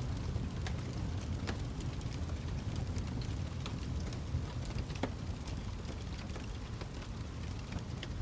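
Wood fire crackling: a steady low rumble with scattered sharp pops and snaps, several a second at irregular intervals.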